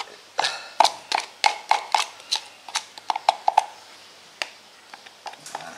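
Metal spoon tapping and scraping against a plastic cup and a small metal cup as thick rice-flour batter is scooped out: a quick run of sharp clicks, about three a second, some with a short ring, thinning out over the last two seconds.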